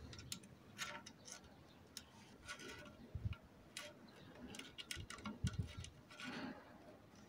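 Faint, irregular small metal clicks and taps as the vanes of a variable-geometry oil pump are worked into their slots between the pump's rings, with a few soft low knocks in between.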